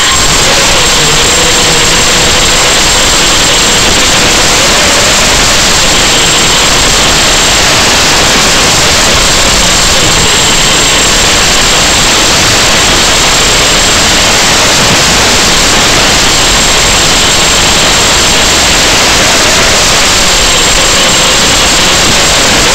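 Loud, steady static hiss from the audio channel of an analog FPV video receiver, cutting in suddenly at the start, with a thin high whine and a faint wavering lower tone underneath.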